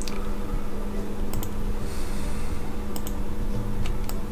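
A few sharp clicks of a computer mouse and keyboard, some in quick pairs, over a steady low hum.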